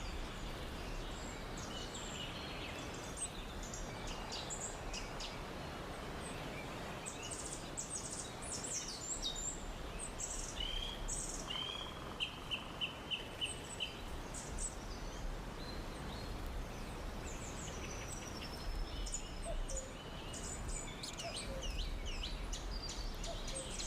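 Rainforest ambience: several birds calling and chirping in short high notes, with one bird giving a run of about seven quick repeated notes about halfway through, over a steady background hiss.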